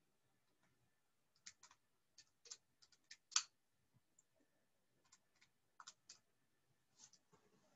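Faint, irregular key clicks, about a dozen over several seconds with one louder press in the middle, as a multiplication is punched into a calculator.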